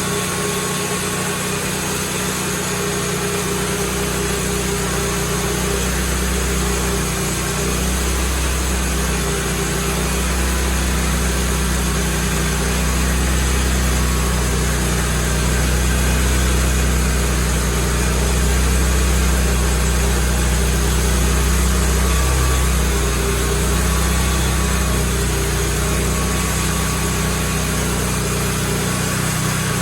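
Sawmill engine running steadily while milling a big maple log into slabs, its deep low rumble swelling through the middle.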